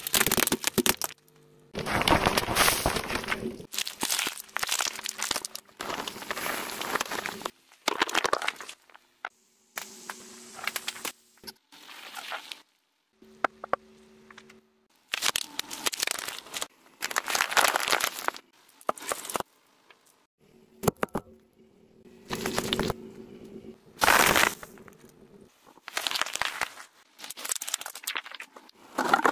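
A car tyre rolling over and crushing plastic objects and squeezing tubes, in a string of cracking, crunching and squishing bursts, each a second or two long with short pauses between.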